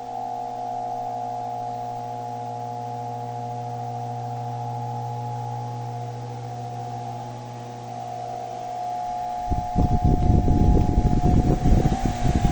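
Ventisol 60 cm wall fan running, its motor giving a steady hum with a whine over it. About nine and a half seconds in, the fan's airflow starts buffeting the microphone with loud, gusty rumbling.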